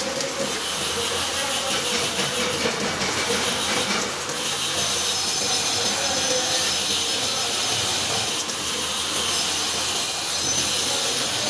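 Stick (shielded metal) arc welding: the electrode's arc crackles and hisses steadily while running a continuous bead.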